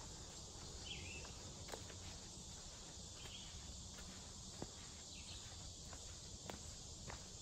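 Footsteps on a dirt forest trail, scattered irregular steps, over a steady high chorus of insects. A few short bird chirps come through now and then.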